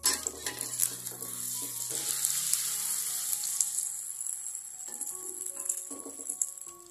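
Egg omelette frying in hot oil in a wok: a loud sizzle that starts abruptly and dies down after about four seconds, when the omelette is turned. A few short clinks of the metal spatula on the wok come near the end.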